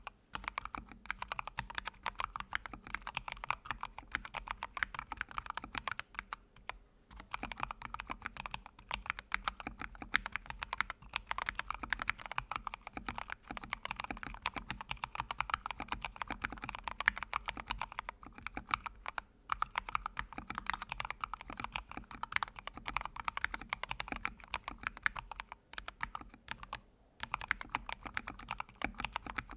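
Typing on a computer keyboard: a fast, continuous run of key clicks with a few brief pauses.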